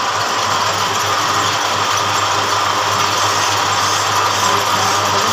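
Metal lathe running steadily, its chuck spinning a steel shaft, with an even mechanical hum.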